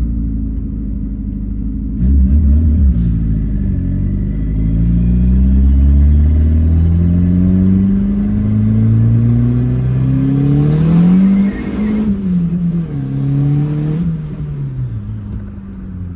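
Turbocharged, carbureted VW AP engine in a Gol accelerating hard. The revs climb for about nine seconds, then fall off sharply and wind down over the last few seconds.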